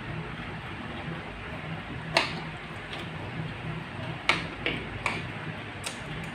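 Spoon and fork clinking against a ceramic plate while eating, about five sharp clinks spread over the last four seconds, over a steady low hum.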